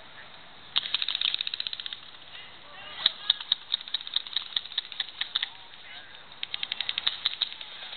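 Airsoft guns firing full-auto bursts: rapid runs of sharp clicks, about a dozen a second, in three stretches.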